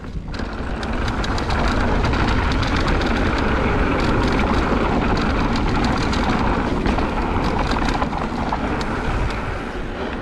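Mountain bike rolling fast down a rocky dirt trail: steady tyre noise on dirt and stones with many small clicks and rattles from the bike, and wind buffeting the microphone.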